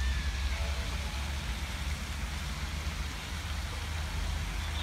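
Wind buffeting the microphone as a fluttering low rumble over a steady outdoor hiss.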